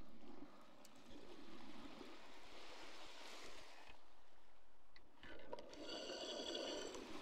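Faint sea water lapping at the shore, a steady wash of noise. A brief high-pitched tone is heard about six seconds in.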